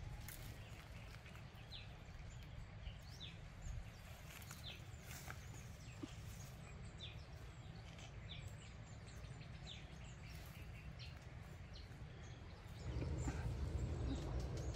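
Outdoor ambience of short, high bird chirps scattered over a steady low rumble, with occasional sharp snaps and rustles of branches as pods are picked from the tree. The low rumble grows louder near the end.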